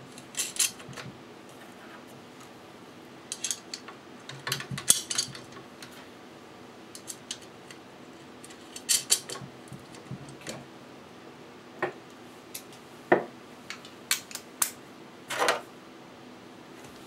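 Scattered metal clinks and taps of screws, nylock nuts and a small wrench against a metal jet-boat steering actuator bracket as the fasteners are fitted by hand. The sounds come in short clusters separated by pauses.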